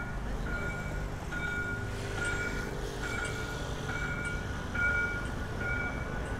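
A vehicle's reversing alarm beeping steadily, a little faster than once a second, over the low rumble of city traffic.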